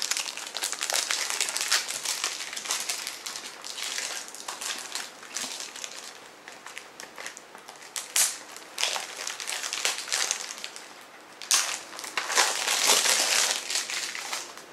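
Crinkly plastic shrink-wrap being torn and crumpled off a CD case: an irregular crackling with a couple of sharp snaps in the second half, loudest near the end.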